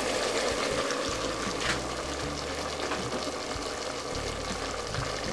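Hot water just poured into an oiled multicooker bowl of frying carrots, apple and apricots, hissing and bubbling against the hot bottom as a steady sound that slowly dies down.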